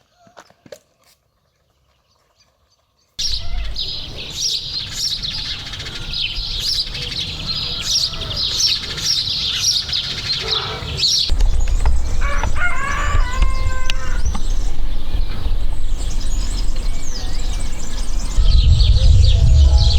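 Many small birds chirping busily, starting suddenly after about three seconds of near silence, over a low rumble that grows louder about halfway through and again near the end.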